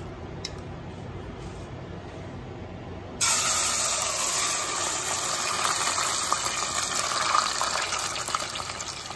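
Marinated beef slices tipped into hot cooking oil in a pot, setting off a sudden loud sizzle about three seconds in that then keeps going steadily.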